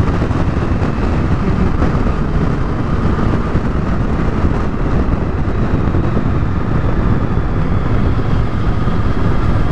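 Riding noise from a Triumph Tiger 1050 at steady speed: wind rushing over the microphone mixed with the motorcycle's inline-three engine running evenly.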